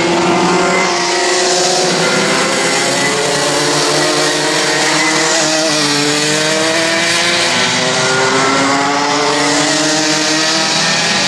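Several Sodi rental karts with two-stroke Rotax Max engines racing in a pack. Their overlapping engine notes keep rising and falling in pitch as the drivers accelerate and lift.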